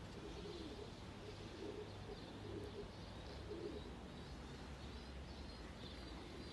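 Domestic pigeons cooing: a string of low, wavering coos repeating every second or so, with faint high chirps from small birds.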